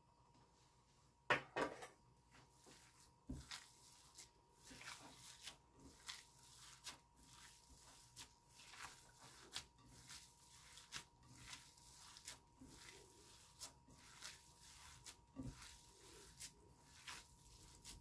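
Bare hands kneading and squeezing raw ground meat mixed with chopped onion, a run of soft, uneven squelching and rubbing strokes. A sharp knock about a second in, the spoon against the plate, is the loudest sound; a faint steady whine sits underneath.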